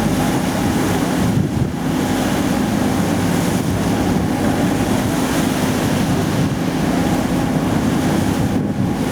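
Tour boat's engine running steadily at cruising speed, with wind buffeting the microphone and water rushing past the hull.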